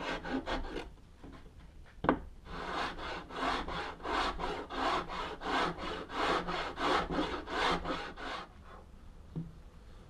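A hand rasp with a perforated blade scraping back and forth over the wooden CNC router bed in quick even strokes, about two or three a second, shaving down the raised lip left along the edge. A single sharp knock comes about two seconds in, and the strokes stop near the end.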